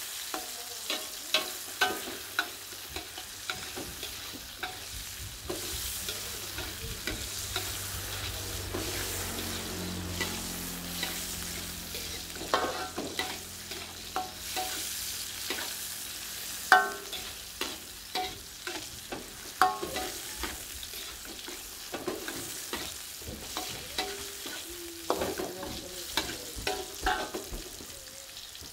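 Vegetable stir-fry sizzling in a metal wok while a metal spatula scrapes and clanks against the pan in irregular clusters of sharp clinks.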